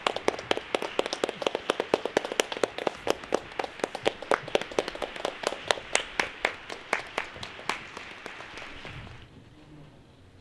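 Audience applause: many sharp hand claps over a hiss of clapping, dying away about eight or nine seconds in.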